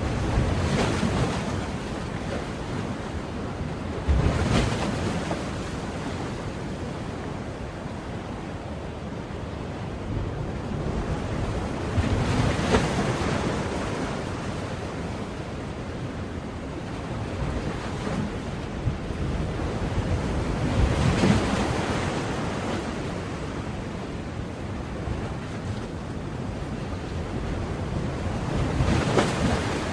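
Sea waves breaking on a shore over a continuous wash of surf, with several louder swells as individual waves crash every several seconds.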